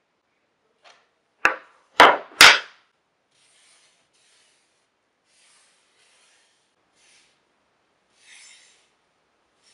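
Wooden pieces of a picture frame clamping jig knocked down on an MDF base: three sharp knocks in quick succession about a second and a half in. These are followed by quiet scraping as the wooden frame and jig arms are rubbed and slid across the board.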